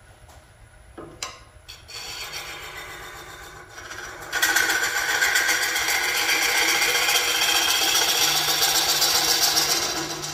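Carbide tool hollowing end grain in a Nargusta blank spinning on a Laguna wood lathe. The scraping starts light, then from about four seconds in turns into a loud, steady cutting noise with a fast, even pulse.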